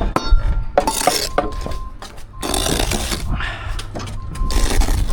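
A steel bricklaying trowel scraping and clinking as it works mortar, with a few short metallic rings between the scrapes.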